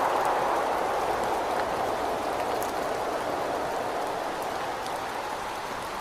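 Steady rain with wind, the rush of a gust slowly easing off, with scattered small ticks of drops.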